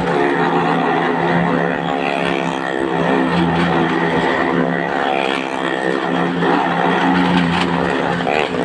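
A car engine and a motorcycle engine running hard as they circle the vertical wooden wall of a well-of-death drum: a steady drone, with the pitch of one engine rising and falling as it goes round.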